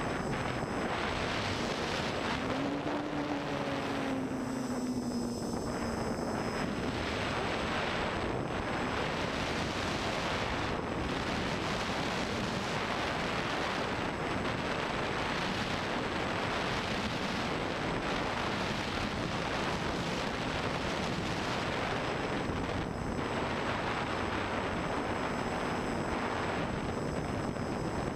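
Armattan FPV quadcopter in forward flight, its T-Motor brushless motors and propellers heard from the onboard camera as a steady rushing noise mixed with wind over the microphone. A motor tone briefly rises and falls about three to six seconds in.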